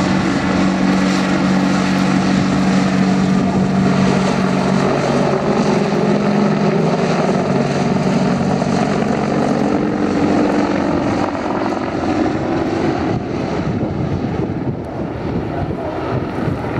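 AH-64 Apache attack helicopter in flight: a steady low rotor and turbine drone over a loud rushing noise. The low tones fade about two-thirds of the way through, leaving the rush.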